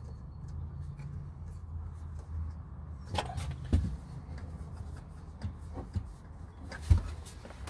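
A few sharp knocks and thuds from a pull-out boot drawer and its rails being pressed and worked into place as it is fitted, the loudest near the end, over a low steady hum.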